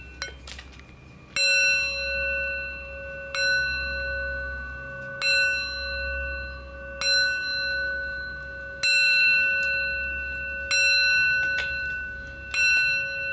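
A bell struck seven times, about once every two seconds, each strike ringing on with several steady overtones, over a low hum.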